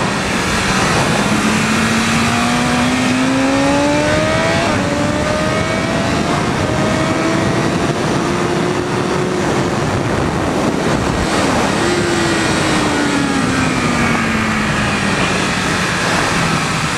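2020 BMW S1000RR's inline-four engine on track, revs rising steadily as the bike accelerates for the first nine seconds or so. About eleven seconds in the pitch dips briefly and jumps back up, then falls steadily as the bike slows. Heavy wind rush over the onboard microphone runs under it.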